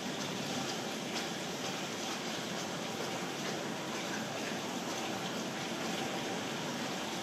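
Steady, even rushing background noise with no breaks.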